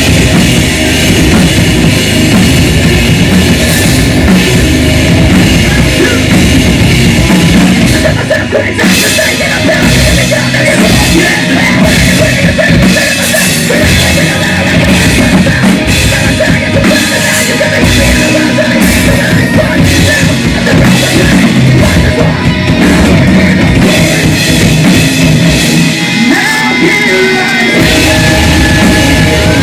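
Live rock band playing loud, with distorted electric guitars, a drum kit and a lead singer. A couple of seconds before the end the bass and kick drum drop out briefly, then the full band comes back in.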